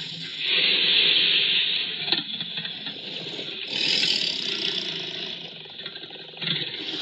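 Creature sound effect: harsh, hissing roar-like calls in three long swells, each building and fading over a second or two.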